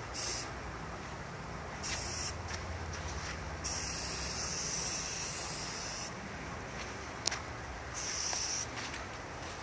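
Aerosol spray paint can spraying in four bursts of hiss, the longest about two and a half seconds in the middle, as a graffiti piece is painted. A single sharp click about seven seconds in.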